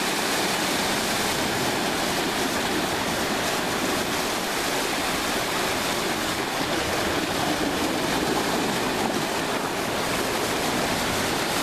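Ocean surf washing and breaking against rocks: a steady, even rush of water.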